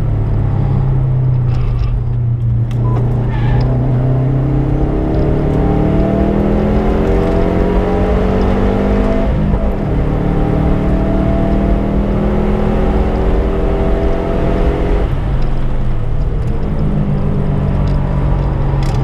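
Subaru Impreza's flat-four engine running hard on track, its pitch climbing as it accelerates; the revs drop sharply about halfway through and again about three-quarters through, then climb again.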